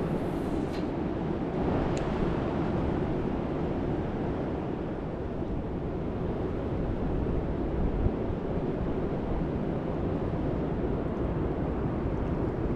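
Steady rush of fast-flowing river water, an even noise without pitch, with a few faint clicks in the first two seconds.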